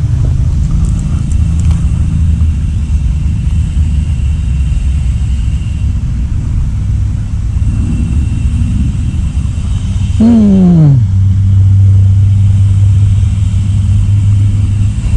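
A steady low rumble. About ten seconds in, an engine's note drops quickly in pitch and settles into a steady low hum.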